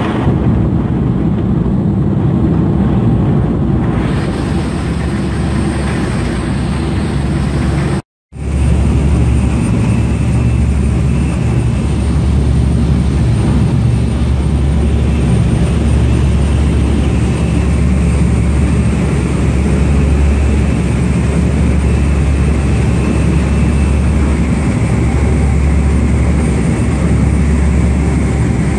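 Engines of a passenger speed-boat ferry running steadily at cruising speed: a loud, low, steady drone with a rush of water and wind over it. The sound cuts out for a moment about eight seconds in.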